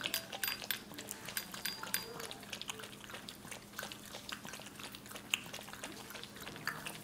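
A Maltese puppy lapping water from a floating-disc water bowl: a quick, uneven run of small wet laps, several a second.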